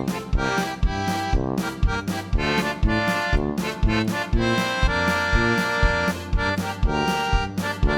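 Background music led by an accordion, over a steady bouncy beat of about two strokes a second.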